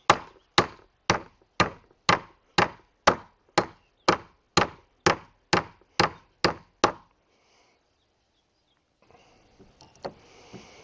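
Hammer striking ring-shank nails to drive them out of a wooden gate board, about fifteen steady blows at roughly two a second that stop about seven seconds in. The nails are hard to get out.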